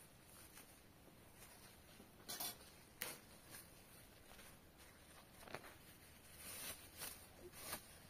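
Near silence with a few faint, scattered taps and rustles, more of them near the end.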